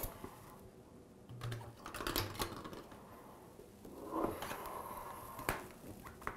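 Clear plastic protective tube being slid over a safety light beam sensor: a few light clicks and knocks, then a longer scrape about four seconds in that ends in a sharp click.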